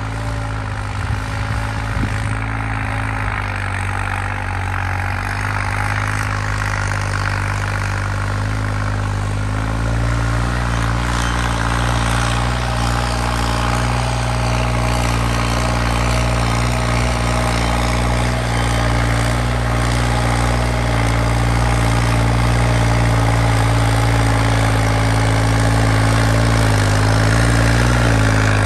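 New Holland 3630 tractor's diesel engine working steadily under load while pulling a cultivator through dry soil; the engine's fuel injection pump has been modified for more power. The sound grows gradually louder as the tractor comes nearer.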